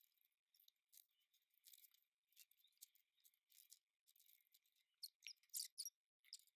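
Faint crinkling and rustling of plastic binder pages and card inserts being handled, a scatter of short soft crinkles that grow a little louder about five seconds in.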